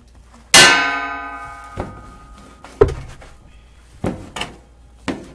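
A loud ringing musical chord strikes about half a second in and dies away over a second or so. After it, a kitchen knife chops through fried tofu onto a plastic cutting board, about five short thunks.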